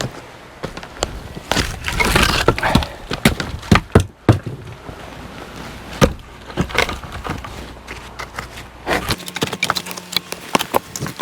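Firewood being worked: a series of irregular, sharp wooden knocks and cracks, several of them loud.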